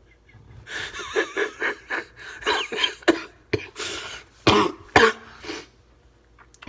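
A person in a coughing fit: a quick run of short, wheezy coughs, then two hard coughs about four and a half and five seconds in. The fit comes from asthma, the wheezing setting off the cough.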